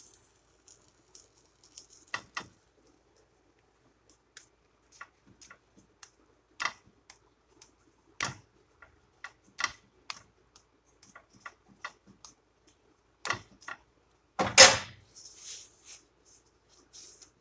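Irregular light clicks and ticks from a quesadilla cooking on a flat pan under a metal spatula, with one louder knock about fourteen and a half seconds in.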